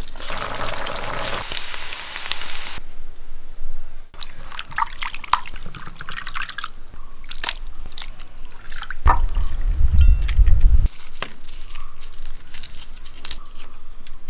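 Hands squelching through wet, spice-marinated beef chunks in a clay pot, then water dripping and splashing as raw beef is rinsed by hand in a clay bowl, with scattered small clicks and taps. A loud low rumble lasts about two seconds partway through.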